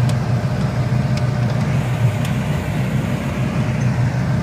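Jeep engine running with a steady low rumble on a rough mountain track, with a few sharp knocks over it.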